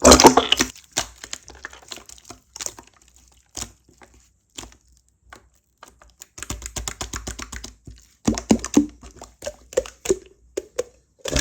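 Slime being squished and pressed by hand, giving quick sticky clicks and crackling pops, loudest in a dense burst at the start and in thicker clusters about two-thirds of the way through.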